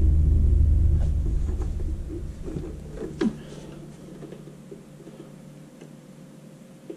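Handling noise as a boxed portable compressor is lifted and carried: a deep rumble that fades out over the first two seconds, then faint scattered knocks and clicks, one sharper click about three seconds in.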